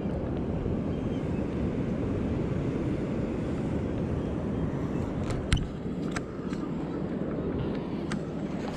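Wind buffeting the microphone in a steady low rumble, with a few sharp clicks and one louder knock about five and a half seconds in as the fish is handled.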